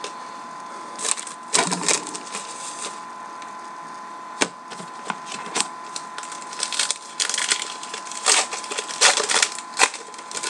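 Baseball trading cards being flipped through and slid against one another in the hands: irregular crisp riffling and flicking of card stock, in bunches, with a steady faint high tone underneath.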